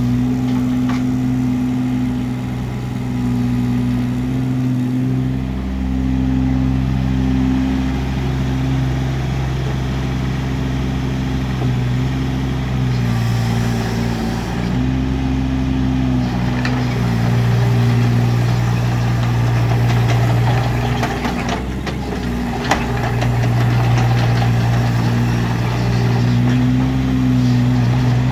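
Kubota KX016-4 mini excavator's diesel engine running steadily while the hydraulics work the arm and swing the upper structure, the engine note shifting in pitch and strength every few seconds as the load changes. One sharp knock about three-quarters of the way through.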